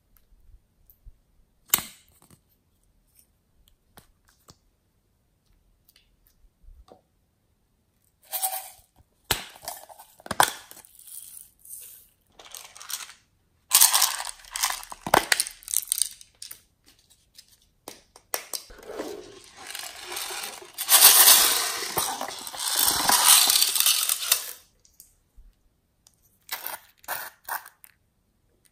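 Hands handling small plastic slime add-in containers: scattered sharp clicks and snaps of plastic, then a few seconds of dense crackling past the middle, the loudest part, and a few more clicks near the end.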